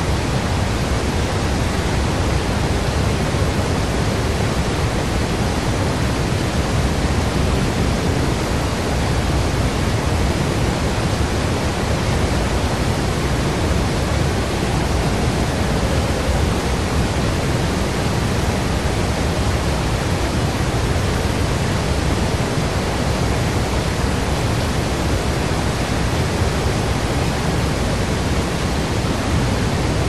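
Steady, unchanging rushing noise, even across the whole span and heaviest in the low end, with no music, drops or other events in it.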